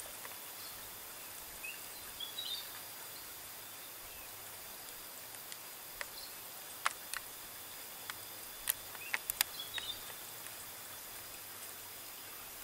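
Quiet outdoor ambience in tropical undergrowth: a steady faint hiss with steady high insect tones, a short bird chirp twice, and a few sharp clicks.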